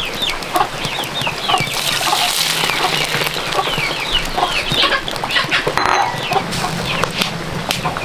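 Chickens clucking, with a run of short, high, falling peeps several times a second.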